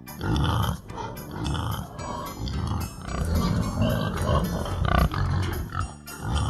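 Pigs grunting repeatedly in short, rough, low grunts.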